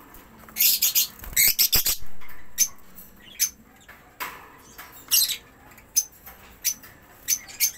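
Budgerigars chirping in short, sharp high calls, a dense burst in the first two seconds and scattered calls after. A few knocks sound about one and a half seconds in.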